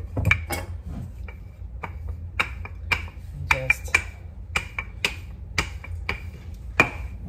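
Wooden rolling pin knocking and clacking on a granite countertop as dough is rolled back and forth, sharp clicks about twice a second over a steady low hum.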